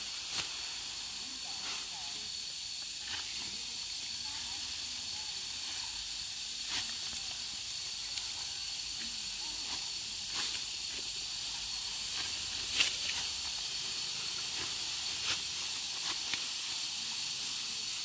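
Hand sickles cutting through ripe rice stalks: brief crisp cuts and rustles at irregular intervals, the sharpest about two-thirds of the way in, over a steady high hiss.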